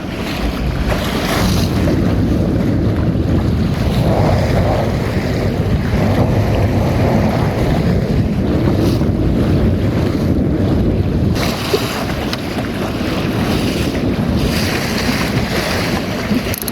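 Strong wind buffeting the microphone while a small open sailboat, a Magnum 422 dinghy, sails fast through choppy water, with water rushing and splashing along the hull. The hiss of the water swells up a few times, about a second in, around four seconds and near the end.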